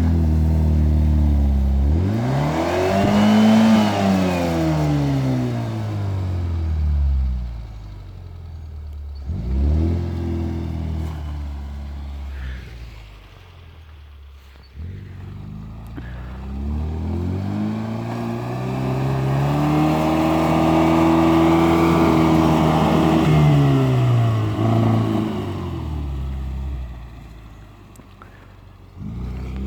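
Suzuki Vitara engine revving up and falling back to idle: one rev a couple of seconds in, a short blip near the middle, and a longer, higher-held rev in the second half before it settles back to a steady idle.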